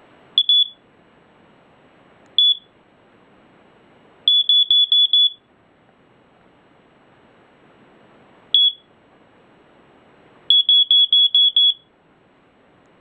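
First Alert SA90LT smoke detector's alarm horn sounding in short, high-pitched beeps as it is tested. There is a double beep, a single beep, a fast run of about six beeps, another single beep, and a final fast run of about seven.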